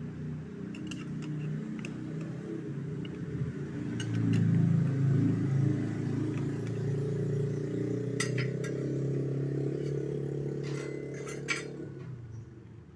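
A steady low motor hum that swells about four seconds in and dies away near the end, with a few sharp metal clinks of a slotted spatula against a steel cooking pot.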